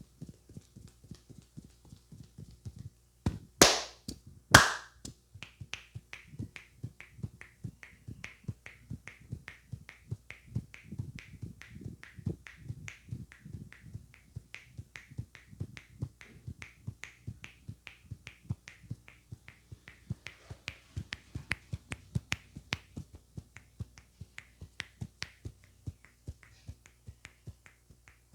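Rhythmic percussive tapping of hands on the head during an Indian head massage, about three taps a second. Two loud, sharp strikes come about four seconds in.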